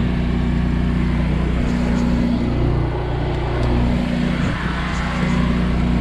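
Small refrigerant vacuum pump running steadily with a low hum, pulling a vacuum on a tractor's air-conditioning system. Its tone shifts briefly about three seconds in.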